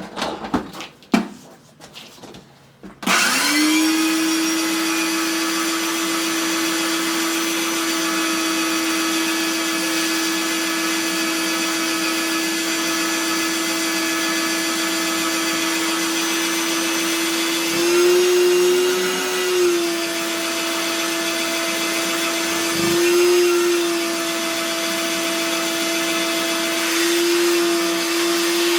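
A few clicks and knocks, then about three seconds in a vacuum cleaner motor starts, spins up and runs steadily while cleaning up machining chips. Its pitch briefly rises a few times.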